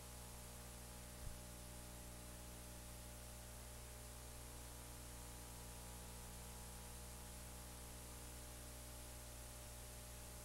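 Faint steady hiss and mains hum of an old analog video recording, with one faint click about a second in.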